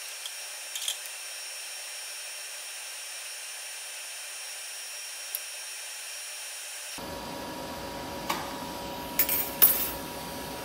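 DC TIG welding arc from a BlueArc 200STI inverter welder, a steady hiss. A few short sharp clicks come near the end.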